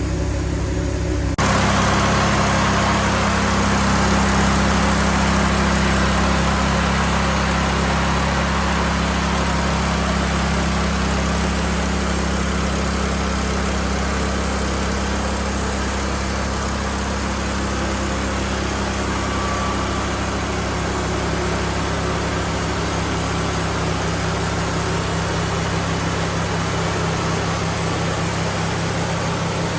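Wood-Mizer portable band sawmill running: a steady engine hum that steps up about a second and a half in, when a dense rushing noise from the sawing joins it and carries on.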